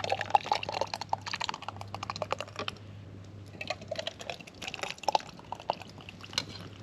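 Potato soup being poured and spooned from a pot back into tin cans: a brisk run of small metal clinks and scrapes with some liquid pouring, thinning out after about three seconds.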